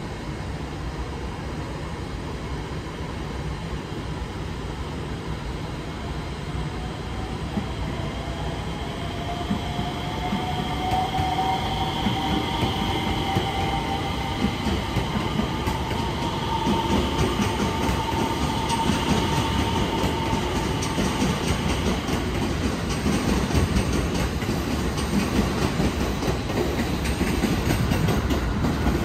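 JR West 227 series electric train accelerating past on the adjacent track. Its inverter-driven traction motors give a whine that climbs in pitch over several seconds. The rumble and the clacking of the wheels over the rail joints grow louder as the cars draw close.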